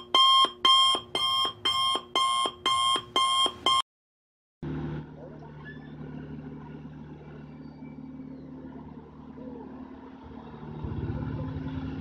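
A channel-intro sound effect of electronic beeping, about two beeps a second, that stops about four seconds in. After a short gap, a Komatsu mini excavator's diesel engine runs steadily and gets louder about ten seconds in as it works.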